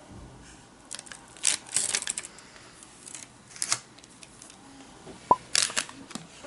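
Scattered light clicks and rustles of a plastic cookie stamp-cutter being handled and pressed into cookie dough on parchment paper, with a brief squeak about five seconds in.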